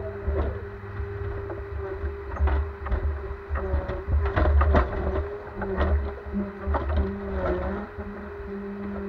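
Ponsse Elk forwarder's diesel engine and hydraulics running, with a steady hum and a second tone that cuts in and out. Irregular knocks and clunks sound through the middle, loudest a little after the middle.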